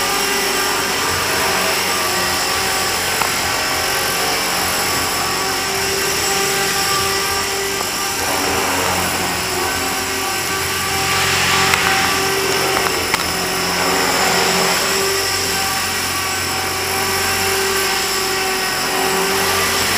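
EXI 250 electric RC helicopter with a 5000 kV brushless motor on a 2S battery, flying: a steady electric whine and gear buzz with the rotor's hum. It grows louder and brighter for a couple of seconds a little past the middle.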